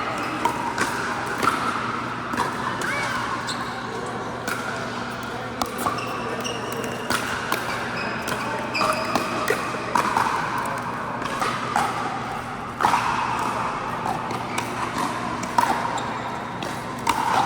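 Pickleball paddles striking plastic balls: many irregular sharp pops, mixed with short high sneaker squeaks on the court floor.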